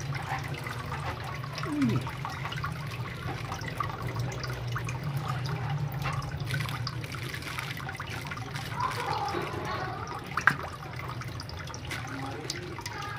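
Water trickling and splashing in a small fish pond, over a steady low hum, with one sharp click about ten and a half seconds in.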